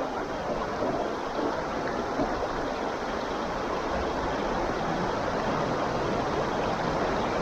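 Steady rush of a creek's running water.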